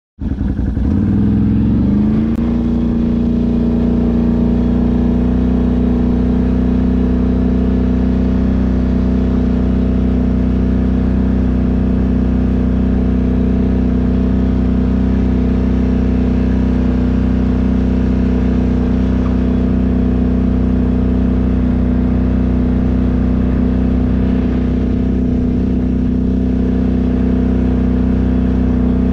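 An engine speeding up over the first couple of seconds, then running at a steady speed with an even drone.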